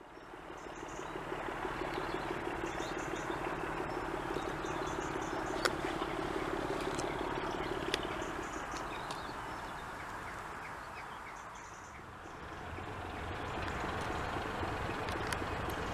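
BR Class 24 diesel locomotive's Sulzer six-cylinder engine working hard under power, a steady engine note that dips about three-quarters through and then builds again with a deeper rumble. Birds chirp faintly.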